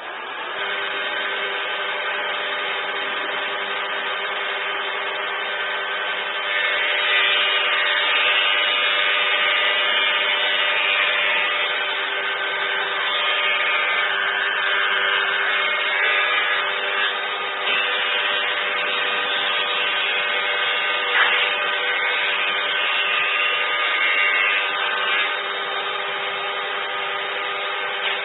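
A power tool's motor starting up and running steadily with a constant whine, getting a little louder a few seconds in.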